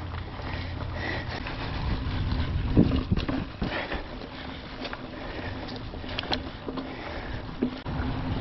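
Mountain bike being ridden on a dirt trail: tyre and trail noise with scattered clicks and rattles from the bike and a louder knock about three seconds in, wind rumbling on the microphone, and the rider breathing hard.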